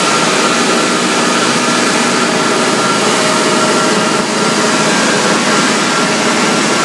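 Wood sawdust making machine, a log crusher driven by a 110 kW electric motor, running: a loud, steady machine drone with a faint, even whine.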